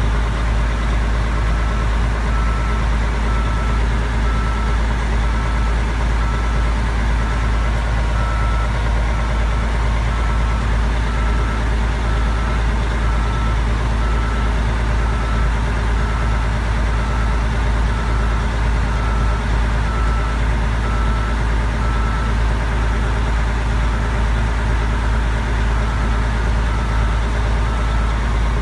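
Mack R600 truck's diesel engine idling with a steady low rumble, heard from inside the cab. About a second and a half in, a reversing beeper starts and keeps up an even, single-pitched beep from then on.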